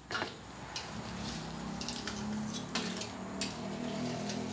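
Wontons deep-frying in hot oil in a wok: a steady sizzling hiss, with a few sharp clicks of the metal spider strainer against the wok.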